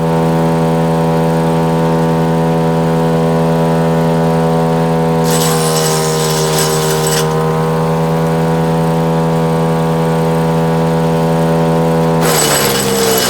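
Split-Fire 4090 wood chipper's engine running steadily. A branch is chewed up with a coarse crunching for about two seconds midway, and the engine pulls down slightly under the load. Near the end more wood goes in, the crunching starts again and the engine bogs down lower.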